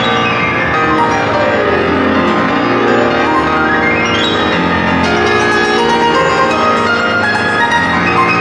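Solo grand piano played fast and densely: a descending run, then a rapid sweep up the keyboard peaking about four seconds in, before the busy playing continues.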